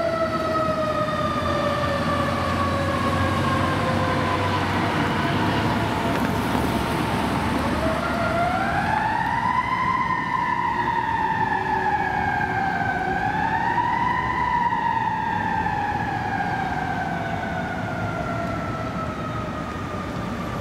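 Fire ladder truck's siren: one long wail falling slowly, wound back up about eight seconds in, dipping and rising once more, then falling slowly again. Low city traffic rumble runs underneath.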